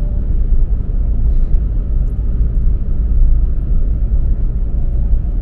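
Car driving at a steady pace, its engine and tyres making a loud, steady low rumble heard from inside the cabin.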